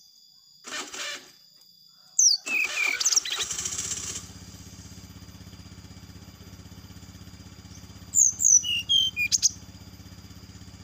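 Brown-chested jungle flycatcher giving bouts of sharp, gliding calls, one about two seconds in and another near second eight. A small engine runs steadily under it from about three and a half seconds on.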